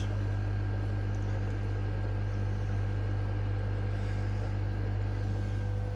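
Steady low electrical hum with a constant hiss and a few faint fixed tones, the continuous drone of running aquarium equipment in a fish room.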